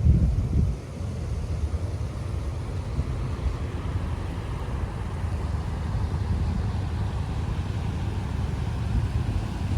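Steady low rumble of a moving vehicle: road and engine noise, a little louder for the first moment.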